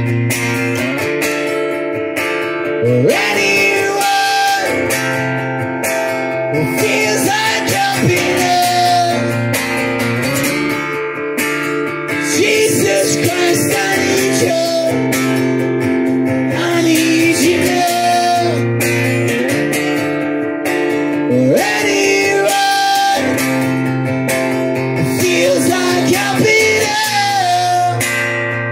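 Acoustic guitar strummed steadily, with a man singing a melody over it into a microphone.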